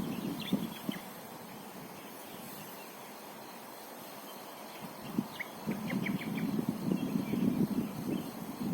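Small birds chirping in two short clusters, one at the start and one about five seconds in, over a rough low rustling noise that drops away for a few seconds and then returns.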